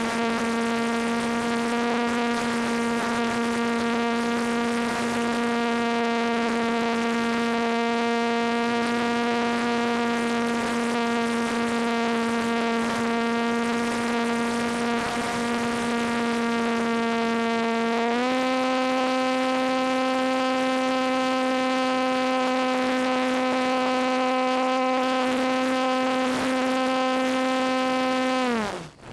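ParkZone T-28 RC plane's brushless electric motor and propeller running in flight, heard from on board: a steady buzzing whine. Its pitch steps up a little about 18 seconds in as the throttle is raised, then drops away quickly near the end as the throttle is cut.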